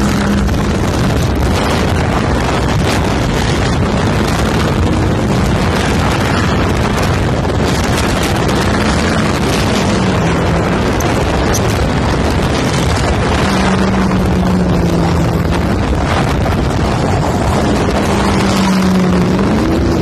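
Ford F-250 pickup engine revving as the truck spins donuts in snow, its pitch rising and falling several times and climbing sharply near the end, under heavy wind buffeting the microphone.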